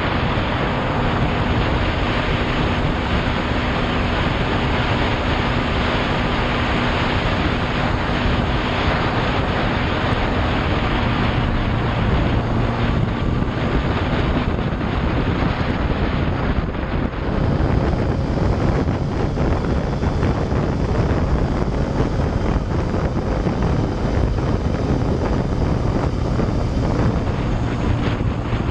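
Yamaha Fazer motorcycle riding on a city road, its engine running steadily under a constant rush of wind on the microphone.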